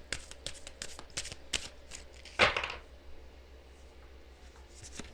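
Tarot cards being shuffled by hand: a quick run of dry flicks and clicks for the first couple of seconds, with one louder swish of cards about two and a half seconds in. After that it goes quieter, with a single flick near the end.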